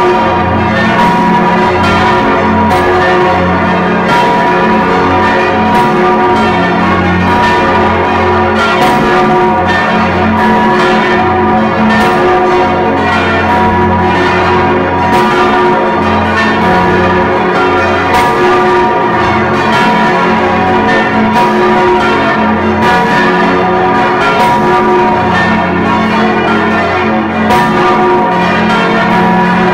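Large swinging church bells, the Stephanus bell among them, ringing close up in the belfry: a steady stream of overlapping clapper strikes over a lasting hum. The sound is muffled by sound damping on the recording.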